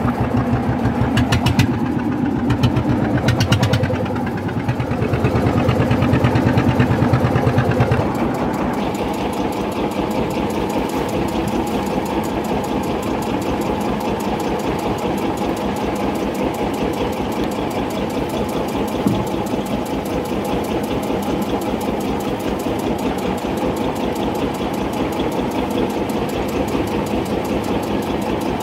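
A small fishing boat's engine running steadily, louder for the first few seconds and then dropping to a lower, even idle about eight seconds in.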